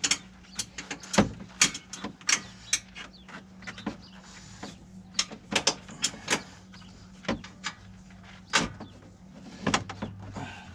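Irregular clicks and knocks of a thick emergency brake cable being pushed and fed up behind a side-by-side's firewall, its housing tapping against the metal, over a faint steady hum.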